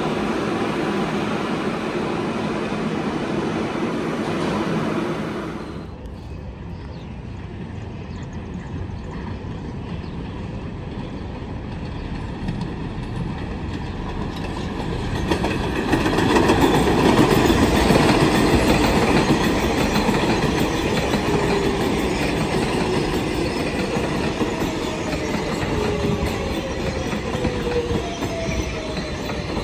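New York City Subway trains running: first a train moving through an underground station, cut off suddenly about six seconds in, then an elevated 7 train approaching and passing, loudest in the middle, with wheel clatter and a faint falling whine near the end.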